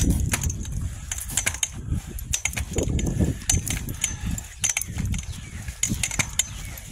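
Footsteps on a dry dirt trail strewn with dead leaves: irregular crunches and clicks over a low rumble.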